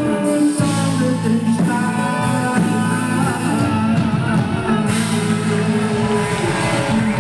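A live band playing upbeat popular music, with singing over the instruments.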